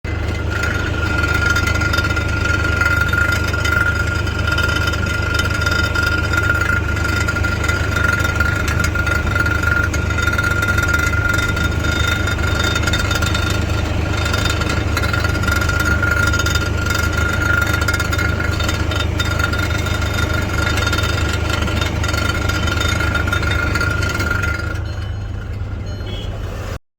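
Car engine idling with a rattle from inside the exhaust system, over a steady high whine that stops shortly before the end.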